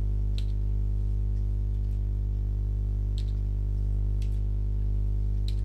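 Steady electrical hum with a stack of harmonics, with a few faint clicks from computer keys pressed while calibration values are entered.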